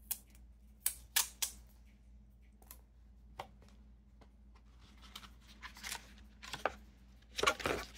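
Small objects being handled on a desk: scattered sharp clicks and taps, then short bursts of rustling and a louder crinkle near the end, as a boxed pen's packaging is opened.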